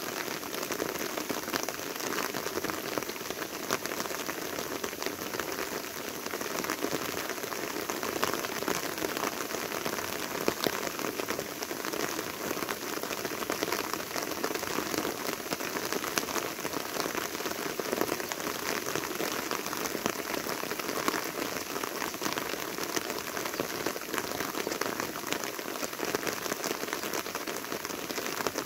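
Steady rain falling: an even hiss of rain with many separate drops ticking throughout.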